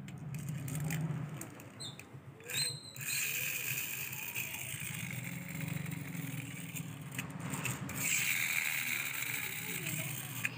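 Plastic toy tractor pushed over a concrete floor, its wheels and gearing rattling and whirring in spells, with a higher whine rising twice, in the middle and near the end.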